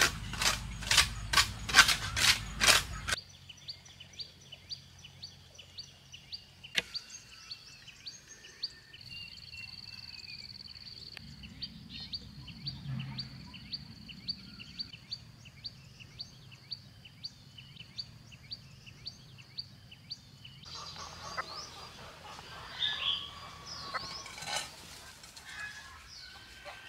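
Scratchy strokes of a hand broom sweeping a dirt floor, a few strokes a second, stopping about three seconds in. Then birds chirping: a long run of short, high chirps repeated evenly, with fuller, more varied bird calls in the last six seconds.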